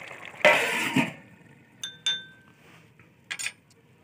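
Metal lid being set onto a cooking pot: a loud scraping rush about half a second in, then two metal clinks that ring briefly, and a shorter scrape near the end.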